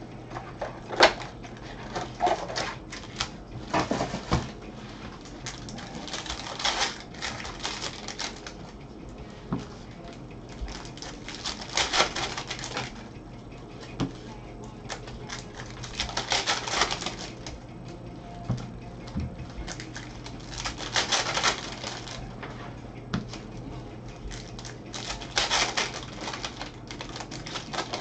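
Bowman baseball card packs being torn open and handled: crinkling wrapper bursts every few seconds, with sharp clicks and taps between them.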